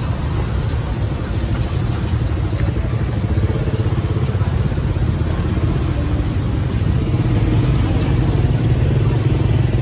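Steady rumble of street traffic, motorbike and car engines, growing a little louder in the second half.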